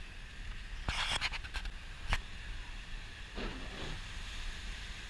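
Steady cabin noise inside a pickup truck: a low rumble with a hiss over it. A quick run of sharp clicks comes about a second in, and a single louder click follows at about two seconds.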